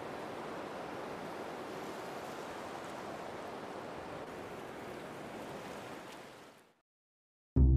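Steady rain, an even hiss that fades out about six and a half seconds in.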